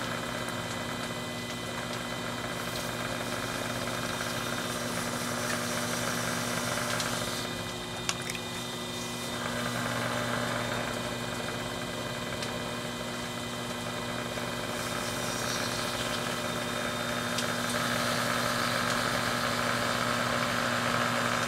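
Skutt Prodigy electric potter's wheel running with a steady hum while wet porcelain is coned up and down under the hands, the rubbing of the clay swelling and fading every few seconds. The hiss of heavy rain on the shed lies underneath.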